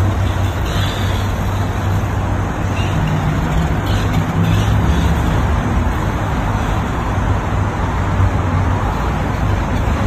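Steady road-traffic rumble: a loud, even noise with a low hum, heard beneath an elevated roadway.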